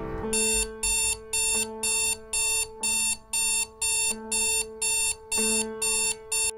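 Timex digital alarm clock's alarm beeping, about two short electronic beeps a second in a steady run.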